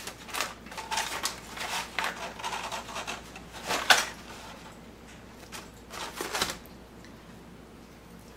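Crisp crust of a baked garlic bread loaf crackling as it is torn apart by hand, with aluminium foil crinkling as the loaf is lifted from it. A run of short crackles, the loudest about four seconds in, dying away after about six and a half seconds.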